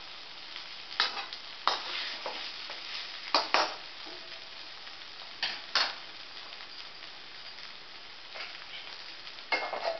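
Metal spatula scraping and clacking against a metal kadhai while stirring sabudana khichdi, about half a dozen sharp strokes. A steady sizzle of the frying mixture runs underneath.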